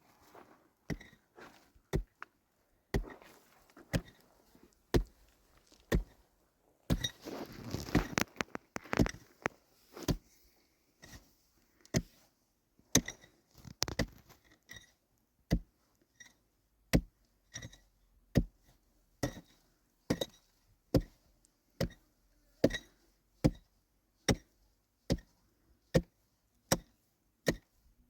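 Steady chopping: sharp single knocks about one a second, a little quicker in the second half, with a short stretch of rustling and scraping about seven to nine seconds in.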